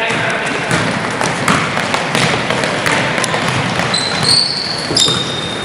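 Basketball bouncing on a hardwood gym floor during a game, with sneakers squeaking in the second half, over a background of spectator voices echoing in the gym.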